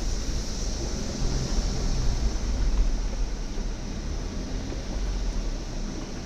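Off-road vehicle engine running steadily low, with wind noise on the microphone.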